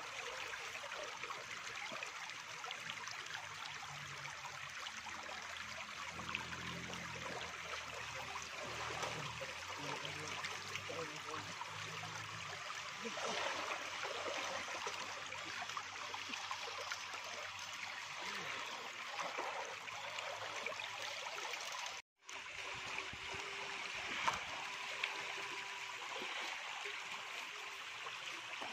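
River water flowing past, a steady rushing and trickling. The sound cuts out for a moment about two-thirds of the way through.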